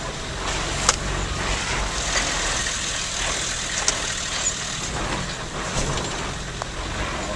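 Car driving along, heard from inside: steady engine and road rumble, with two sharp clicks, one about a second in and one near four seconds.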